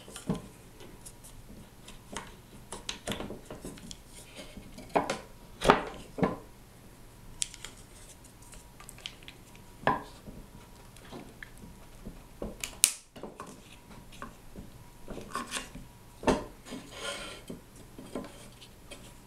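Small neodymium magnets being pushed and slid with a wooden dowel between square steel bars: scattered metallic clicks, taps and scrapes, with a few sharper clicks as magnets snap against the steel.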